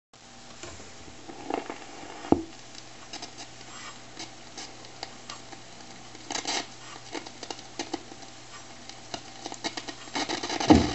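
Newcomb EDT15 classroom record player: scratchy clicks and crackle as a 45 rpm record is handled on the turntable, over a steady amplifier hum, with one sharp click about two seconds in. Music from the record starts just before the end.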